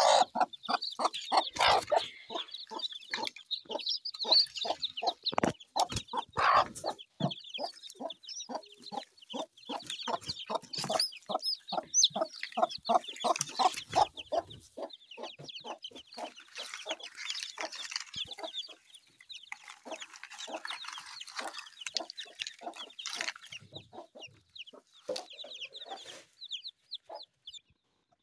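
Broody mother hen clucking in rapid short, evenly spaced clucks, about three a second, over the high, thin peeping of newly hatched chicks. The clucks grow fainter after the middle while the chicks keep peeping.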